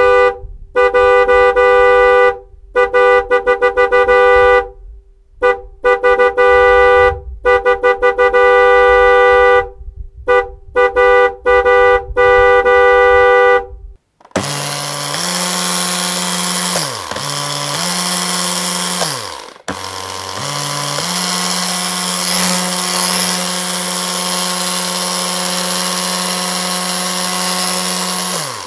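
A car horn honking for about the first half, in long blasts broken by quick stuttering honks. Then a high-speed electric motor runs with a loud rough whirring; twice it winds down in pitch and starts up again, and it stops near the end.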